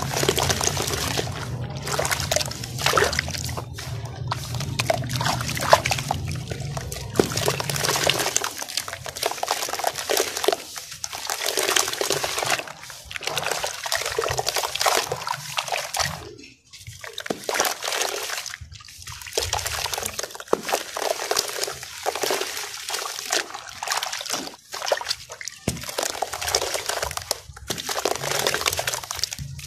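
Wet sand-cement chunks crumbled by hand and dropping into a basin of water, with sloshing, trickling and crumbling in repeated bursts broken by brief pauses.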